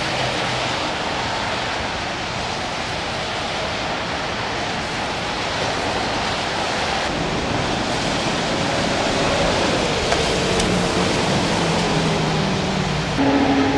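Steady hiss of freeway traffic on soaked pavement, tyres swishing through the water as vehicles pass, with engine tones sliding down as vehicles go by. About thirteen seconds in, a louder engine hum with several steady tones comes in.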